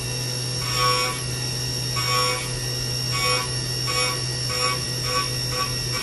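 Haas CNC mill cutting 12L14 steel with a solid carbide helical end mill: a steady spindle hum and a high whine, with a ringing cutting tone each time the cutter bites into the steel. The bites come about once a second at first, then faster and shorter toward the end.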